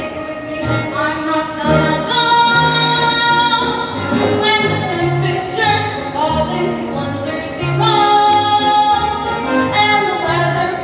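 A woman singing a musical-theatre solo, holding long notes over instrumental accompaniment with a low bass line.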